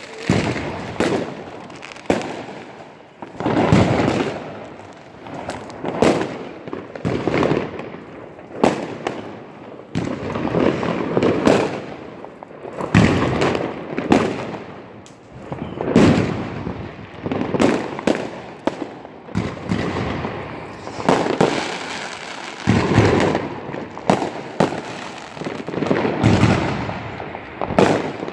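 Fireworks going off in a steady barrage: sharp bangs one after another, often several a second, with an echoing rumble between them.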